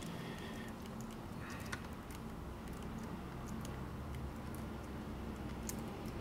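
Scattered soft clicks of a computer keyboard and mouse, over a low steady hum.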